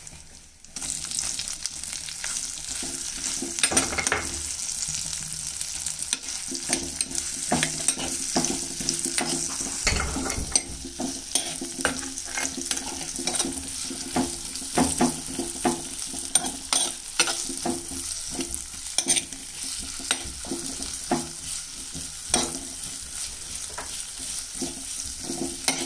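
Sliced onions frying in hot oil in a clay pot, a steady sizzle that picks up sharply about a second in, while a metal spoon stirs them with frequent scrapes and clicks against the pot.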